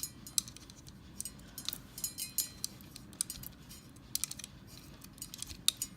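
Irregular light metallic clicks and clinks from the Tatung hugger ceiling fan's housing and motor being handled, over the faint steady hum of another ceiling fan running.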